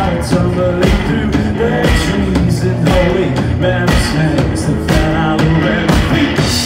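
A live rock band plays loud: electric guitar over a standing drum kit, with drum hits keeping a steady beat about twice a second.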